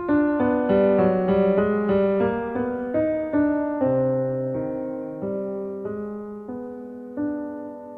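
Background music: a gentle piano piece, single notes and chords struck one after another and left to ring and fade.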